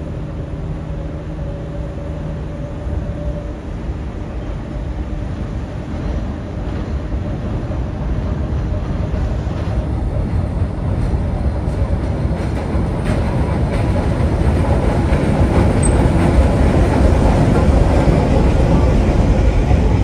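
Work train of a locomotive towing retired Budd R32 subway cars approaching and passing on elevated track. The rumble of the engine and the wheels grows steadily louder, loudest at the end as the cars roll past close by.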